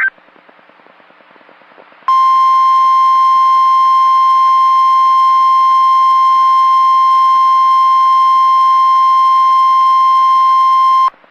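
NOAA Weather Radio 1050 Hz warning alarm tone: one steady, loud beep that starts about two seconds in after faint hiss and holds for about nine seconds before cutting off. It signals that a tornado warning broadcast follows.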